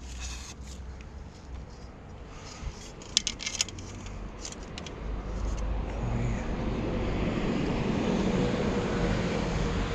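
A few light clinks and knocks of scrap aluminium pieces being handled, the sharpest about three seconds in. Then the road noise of a passing motor vehicle rises from about halfway and holds.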